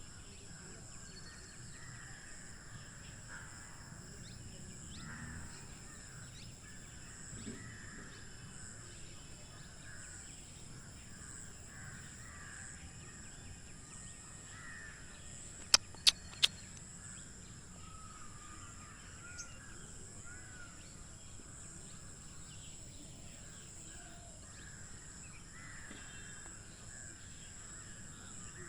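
Many birds calling at once in overlapping short calls, over a steady high-pitched whine. Three sharp clicks come in quick succession about halfway through.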